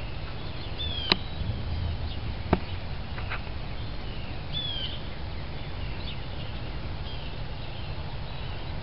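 Small birds chirping, with short downward-sliding calls repeated every second or two, over a steady low rumble. Two sharp clicks, about a second in and about two and a half seconds in, are the loudest sounds.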